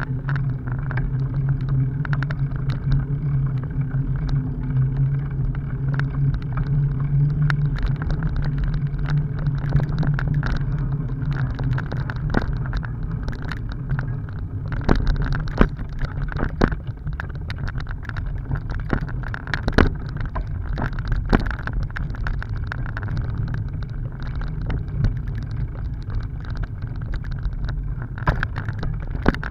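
Bicycle riding over a rutted dirt road: a steady low rumble of the tyres on the rough ground, broken by scattered sharp knocks and rattles as the bike hits bumps, more often in the second half.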